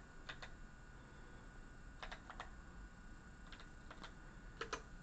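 Faint clicks of computer keyboard keys being typed: a few scattered keystrokes in small groups of two or three.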